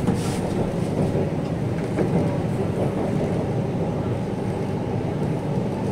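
Steady rumble of an MTR Kwun Tong Line C-Train heard from inside the car as it runs between stations: wheels on rail and running gear, mostly low in pitch, at an even level.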